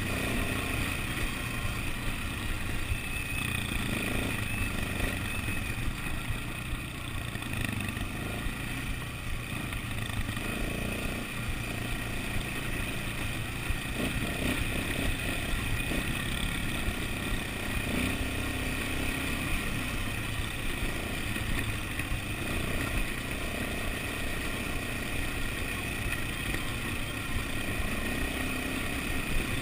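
Massey Ferguson quad bike engine running steadily while the bike is ridden, picked up by a camera mounted on the machine.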